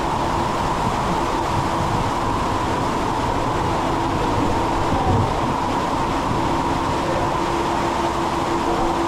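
Water rushing steadily through a water slide's runout pool, over a constant low hum.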